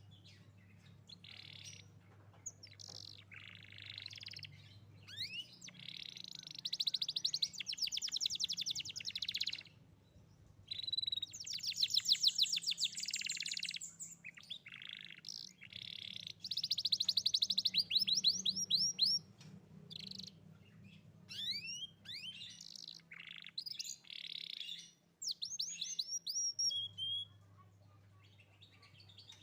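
Young canary singing: phrases of fast rolling trills and quick rising chirps, each lasting a few seconds with short pauses between them.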